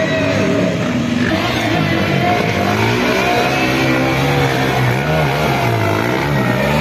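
Dirt bike engine revving up and down as the bike rides through shallow river water.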